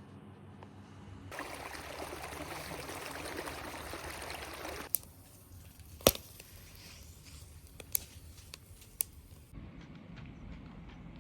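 About three and a half seconds of steady, noisy hiss, then four sharp clicks or knocks a second or two apart, the second one the loudest.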